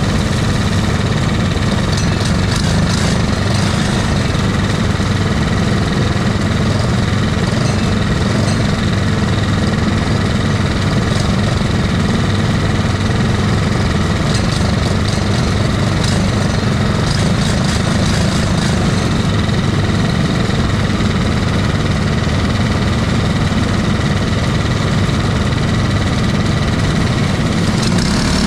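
Racing go-kart engine running at a steady idle, heard close up from on board the kart.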